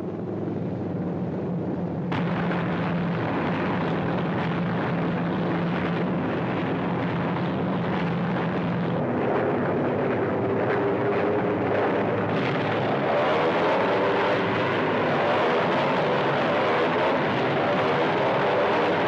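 Piston engines of a formation of propeller warplanes, Junkers Ju 87 Stuka dive bombers among them, droning steadily overhead. About nine seconds in, the drone turns higher with a wavering pitch, and it grows a little louder a few seconds later.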